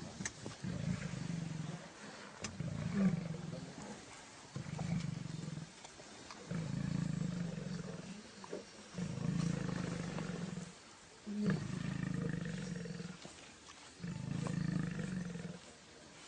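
Male lions growling during a fight: about seven long, deep growls, each lasting a second and a half to two seconds, with short pauses between them.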